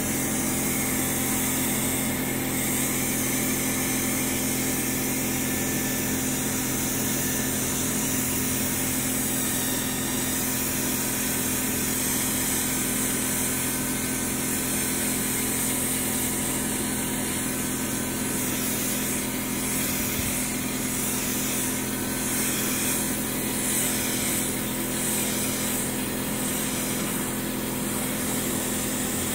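Compressed-air gravity-feed spray gun hissing steadily as it sprays paint, over a steady low mechanical hum. The hiss wavers more in the last third.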